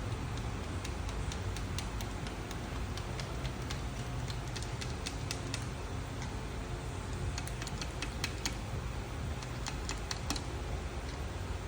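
Irregular light clicking and ticking, in short clusters, over a steady low hum.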